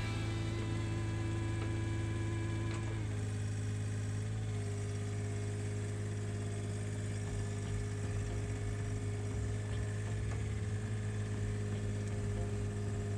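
Komatsu PC35 mini excavator's diesel engine idling steadily while warming up.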